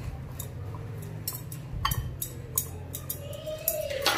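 Hand-mixing sliced onions with spices in a bowl: soft rustling with scattered light clicks and clinks against the bowl, over a low steady hum.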